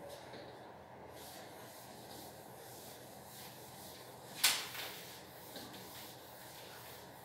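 Faint rubbing of a cloth duster wiping a whiteboard, with a sharp knock about four and a half seconds in and a lighter tap a second later.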